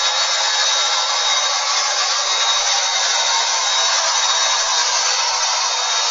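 Bissell MultiClean Allergen Lift-Off Pet's motor running steadily: an even rush of air with a faint high whine.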